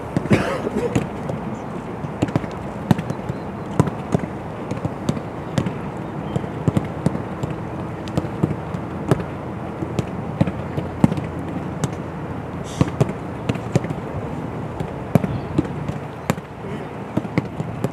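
Footballs being kicked and caught in training: a string of sharp, irregular thuds, one or two a second, over a steady outdoor background rush.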